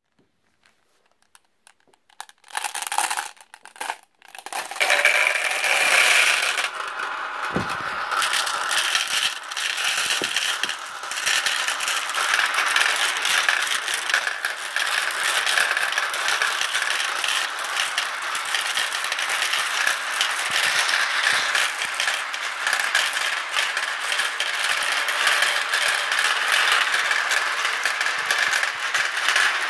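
Many marbles rolling and clattering around plastic spiral funnels of a toy marble run. A few rolls and clicks come about two seconds in, and from about five seconds in the mass of marbles makes a dense, continuous rattle.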